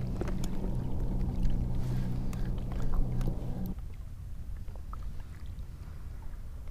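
A steady low motor hum that cuts off suddenly about four seconds in, leaving a low rumble and a few faint clicks.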